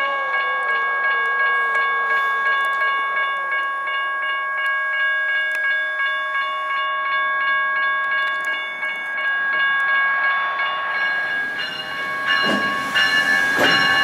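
A train rolling through a railroad grade crossing. A steady high ringing tone is held over the rumble of the train, a lower tone slides down and fades in the first couple of seconds, and the sound turns louder and rougher near the end.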